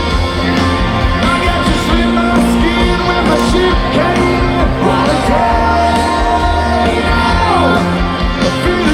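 Live rock band playing, with a sung lead vocal gliding over a steady bass line.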